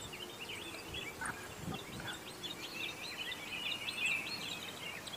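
Small birds chirping and twittering in quick, overlapping calls, busiest a little past the middle, over a quiet outdoor background.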